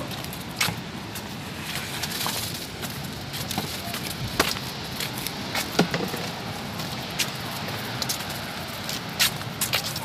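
Steady rushing roar of water from Chitrakote Falls, with scattered sharp clicks and knocks over it.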